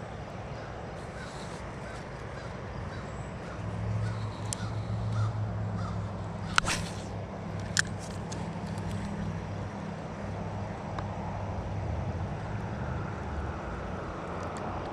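A crow cawing twice, over a steady low hum.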